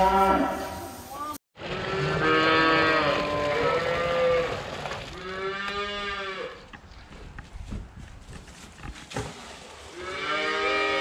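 Calves mooing in their pens, four or five long drawn-out calls with short quiet gaps between them, and a few faint knocks in the pauses.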